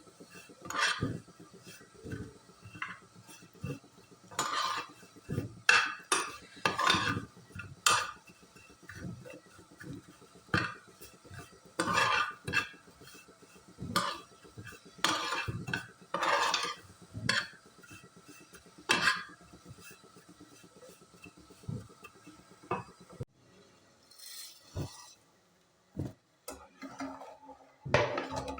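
A metal spoon stirring and scraping in a cooking pot, clinking against the sides in irregular strokes, with a pause about 23 seconds in before a few more knocks.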